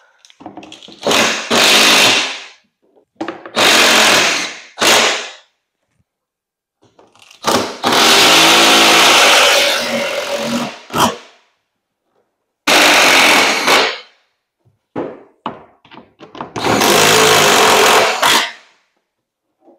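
Power drill running in six bursts, the longest about three seconds, boring pilot holes and running self-tapping screws through a golf cart's plastic battery tray into the frame.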